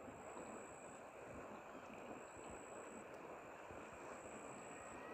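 Faint, steady rushing noise of the fast-flowing flooded river and wind, with no distinct events.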